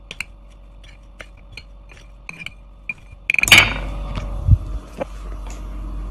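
A metal spoon clinks and scrapes again and again against a ceramic bowl as tofu is coated in breadcrumbs. About three and a half seconds in comes a loud rustle and knocking as the phone is picked up and carried, with one low thump, and after that a steady hiss.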